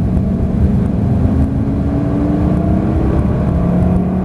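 Lamborghini engine heard from inside the cabin under hard acceleration: its pitch climbs for about three seconds, then drops at a gear change and carries on pulling.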